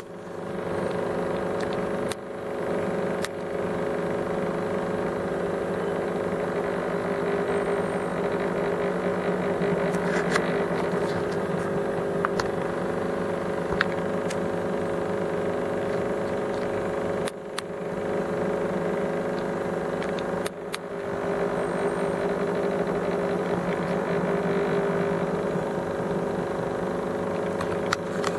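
Aquarium pump humming steadily on several steady tones, with a few scattered clicks.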